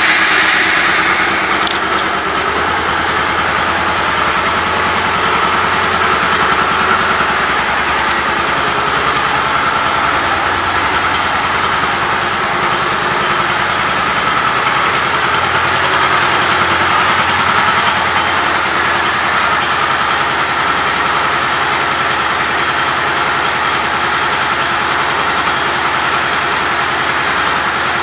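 2004 Suzuki Marauder 800's V-twin engine idling steadily, just after being started.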